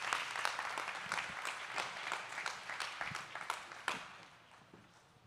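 A congregation applauding, the clapping thinning out and dying away about four seconds in.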